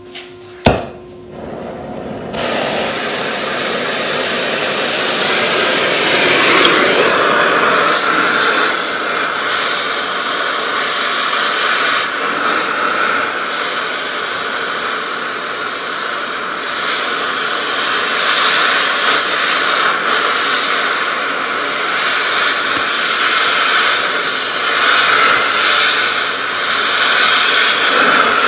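A sharp pop about a second in, then an oxy-fuel cutting torch hissing steadily and loudly as it heats and blows through a rusted chain-hanger bolt with its oxygen jet, getting louder a few seconds in.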